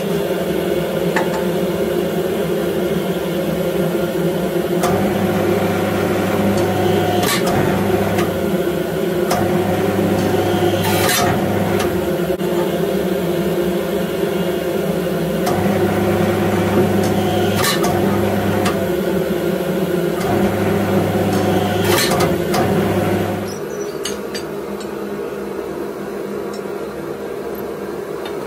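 Steady electric machine hum from forging-shop equipment. A deeper drone cuts in and out several times, with a few sharp clicks, and the whole sound drops in level near the end.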